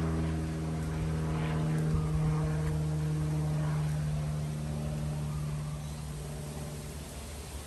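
A vehicle engine running with a steady drone, fading away near the end.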